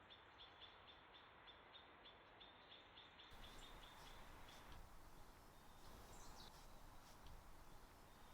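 Near silence: faint outdoor background, with a quick, even ticking for the first three seconds and a faint bird chirp or two later on.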